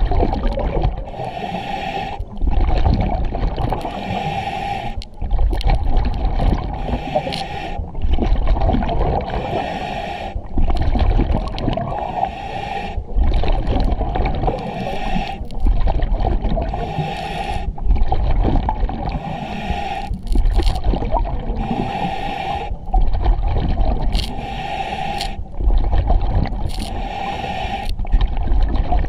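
Scuba diver breathing through an EXO-26 full-face mask regulator underwater: a hiss on each breath in and a low rumble of exhaled bubbles, repeating steadily about every two and a half seconds.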